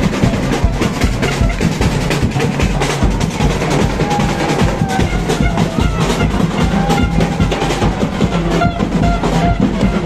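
Carnival foot-group drum band playing a fast, steady rhythm on big bass drums and snare-type drums. A few held tones sound over the drumming from about four seconds in.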